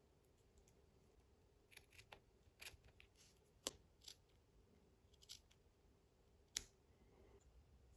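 Small scissors snipping thin cloth: a series of quiet, short, separate snips, starting about two seconds in.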